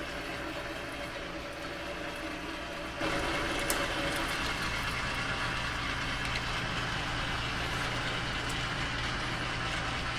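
A metalworking machine's spindle running steadily with a hum while a freshly sharpened twist drill cuts into steel. About three seconds in the sound grows louder and a hiss spreads across the high end, then holds steady.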